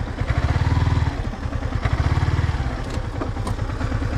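Sports motorcycle engine revved in bursts of about a second as the bike is worked up a steep rocky off-road slope, with a few sharp knocks a little over three seconds in.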